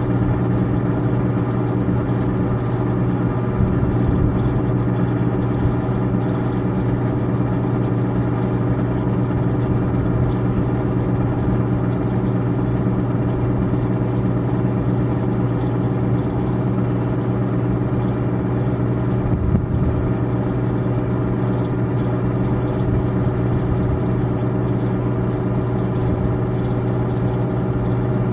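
A steady, low mechanical hum of a motor or engine running at constant speed, with no change in pitch or level.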